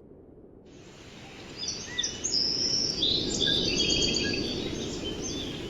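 Several birds chirping and whistling over a steady low rushing noise, fading in over the first couple of seconds.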